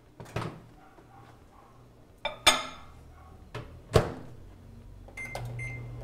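Microwave oven in use: the door clicks open, there are a couple of knocks, and the door shuts with a loud clunk about four seconds in. Then short high keypad beeps sound and the oven starts running with a low steady hum.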